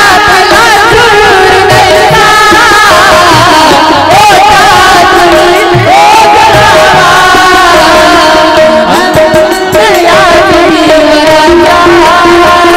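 Marathi devotional bhajan: a voice singing a wavering, ornamented melody over steady held notes and tabla strokes.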